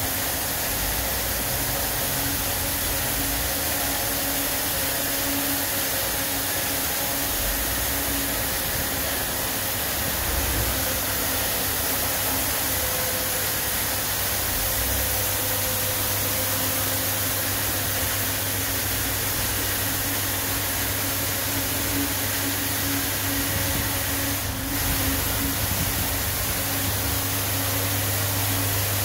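RoboWash LK101KP touchless automatic car wash running: high-pressure spray hissing steadily from the gantry arm as it travels around the car, over a low pump-motor hum that becomes a steady drone about ten seconds in.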